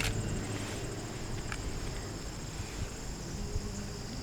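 A steady, high-pitched insect chorus, crickets trilling without a break, with a couple of faint clicks.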